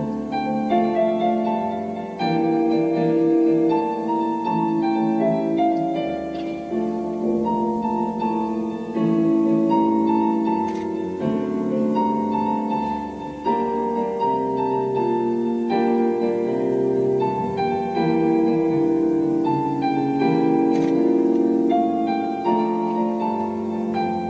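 Instrumental keyboard music with piano-like notes ringing and overlapping over sustained chords, playing steadily without drums.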